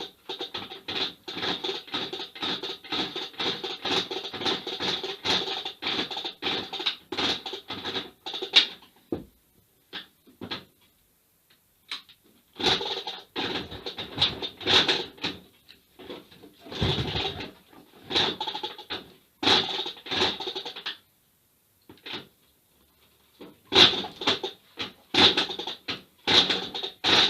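The kickstarter of an IZh Planeta motorcycle worked again and again, its ratchet mechanism making a rapid metallic clicking of about four clicks a second, in long runs broken by short pauses. The engine does not catch.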